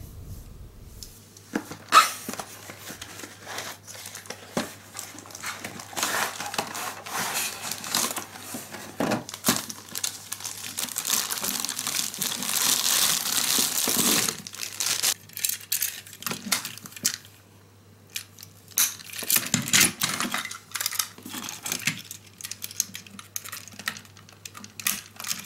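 Thin plastic wrapping crinkling and tearing as plastic toy train cars are pulled out of their bags, loudest about halfway through. Scattered clicks and clatters follow as the plastic cars are handled and pushed together on the table.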